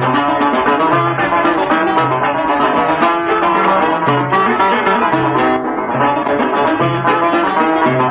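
Instrumental interlude of an Algerian chaabi ensemble: plucked strings play a fast, busy melody over a repeating low note, with no singing.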